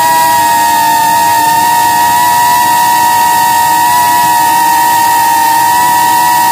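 Quadcopter drone's motors and propellers giving off a steady high-pitched whine, shifting slightly in pitch now and then as it climbs.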